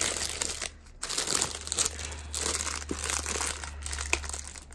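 Clear plastic wrapping crinkling and rustling as a fabric zip pouch is unwrapped by hand, with a brief lull just under a second in.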